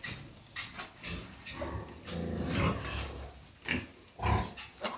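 Newborn animals from a litter being delivered, vocalising: a longer pitched call about two seconds in, then two short sharp cries near the end.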